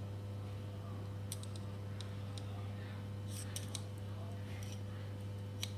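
Light metallic clicks and taps of a small screwdriver tip against steel bearing balls in a Shimano freehub body as the balls are set into their race, in a loose run with a quick cluster about halfway and one sharper click near the end. A steady low hum runs underneath.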